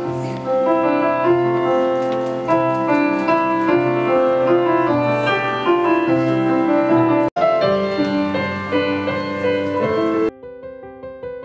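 Piano music playing, slow sustained notes and chords. It cuts out for an instant about seven seconds in, and shortly before the end it drops to a quieter, cleaner piano passage.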